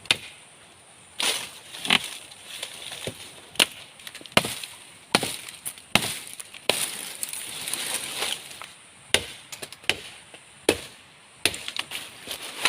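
Chopping wood with a bladed tool: about a dozen sharp strikes at uneven intervals, some close together and some a second or two apart.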